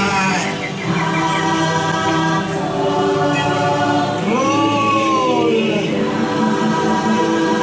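A choir singing slow, chant-like music in long held notes, with one phrase sliding up and back down about halfway through.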